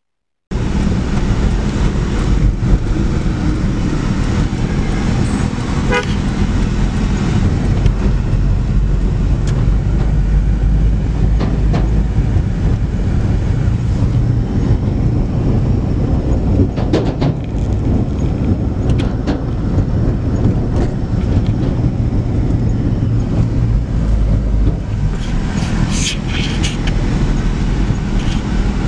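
Road traffic: a steady, heavy low rumble of vehicle engines and road noise, with horns tooting a few times, the clearest near the end.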